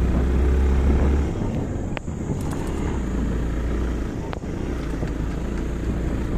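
Motorcycle engine running while the bike rides along a rough dirt track, its low drone easing a little after about a second. Two sharp knocks cut through, about two seconds in and again just past four seconds.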